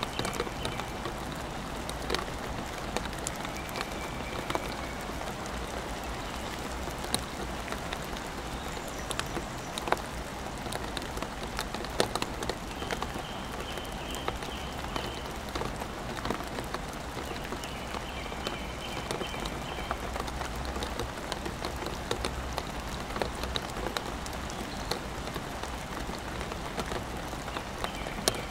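Rain falling steadily, a dense patter broken by sharp clicks of individual drops landing close by.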